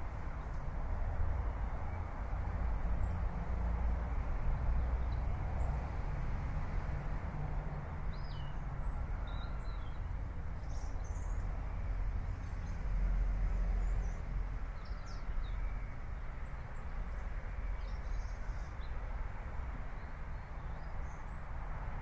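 Outdoor ambience: a steady low rumble and hiss, with faint short bird chirps now and then.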